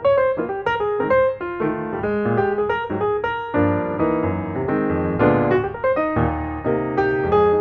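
Background music: a piano playing a quick run of notes and chords.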